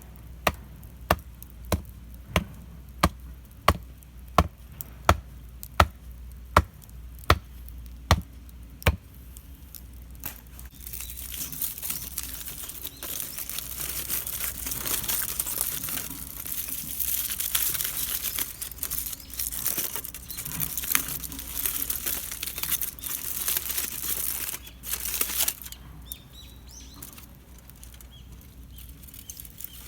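A blade chopping, about thirteen sharp strikes at an even pace some two-thirds of a second apart, then about fifteen seconds of rough scraping that stops near the end, the kind of sound a knife makes shaving wood.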